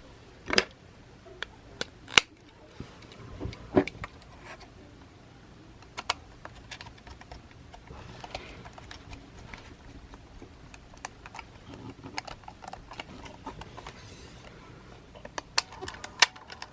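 Sony WM-EX655 cassette Walkman being handled and operated: scattered sharp plastic clicks and small knocks. The loudest come about half a second in, just after 2 s and near 4 s, and a quick run of clicks comes near the end.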